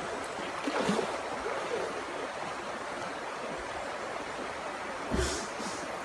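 Steady rushing of a shallow river's flowing water, with a short thump about five seconds in.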